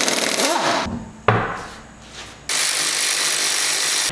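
Pneumatic impact wrench loosening the lug nuts on a front wheel. It fires in two short bursts about a second apart, then runs in one longer steady whirr that cuts off abruptly.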